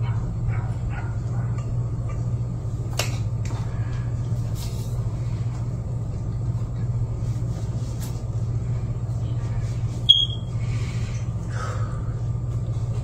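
A steady low hum, with a sharp click about three seconds in and a short high beep about ten seconds in.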